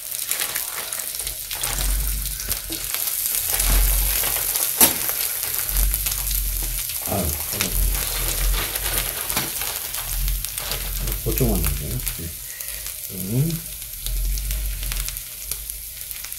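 Pulled pork and brisket slices frying on a hot flat-top griddle beside bubbling butter, a steady sizzle. A sharp click comes about five seconds in.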